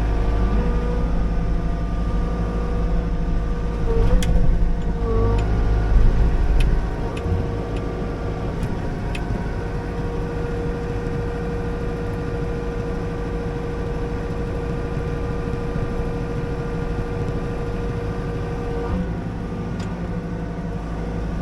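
Liugong 9051F mini excavator's diesel engine running steadily under hydraulic work while it pushes over small trees, with a steady whine over the engine. A heavy low rumble drops away about seven seconds in, and a few sharp ticks or snaps come between about four and nine seconds in.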